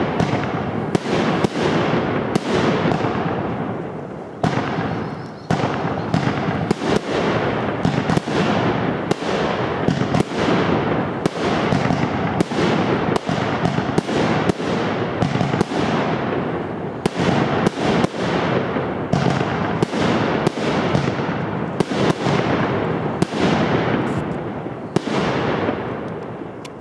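Aerial fireworks bursting overhead in quick succession, about one to two bangs a second, each bang trailing off in a long echoing rumble that blends into the next. The barrage dips briefly about four seconds in and fades away at the very end.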